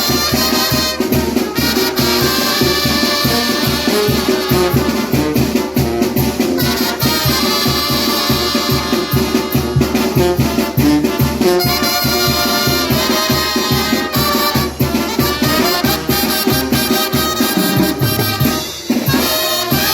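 Salsa-style Latin dance music led by a trumpet, over a steady percussion beat.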